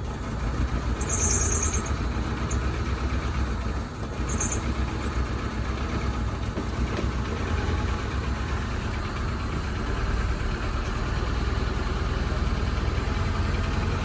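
Car engine running steadily at idle, a low even rumble, with two brief high-pitched chirps about a second in and again about four and a half seconds in.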